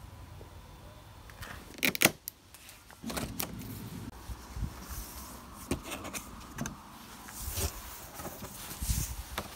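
Cardboard compressor box being opened by hand with side cutters: a sharp snap about two seconds in, then scattered clicks and cardboard rustling and scraping as the flaps are pulled open.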